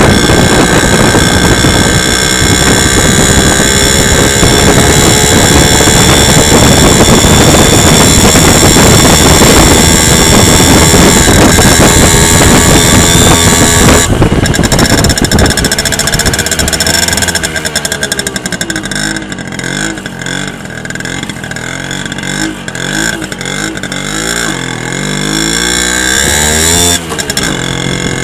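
Simson S50's 50 cc two-stroke single-cylinder engine running under load while riding, loud and steady for about the first half. It then eases off, and the revs rise and fall over and over. The moped has been repaired for a stalling fault caused by a holed carburettor float, with a new contact breaker fitted.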